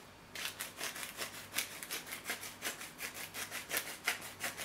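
Hand-twisted pepper mill grinding: a quick, even run of dry rasping clicks, about five a second, starting about half a second in.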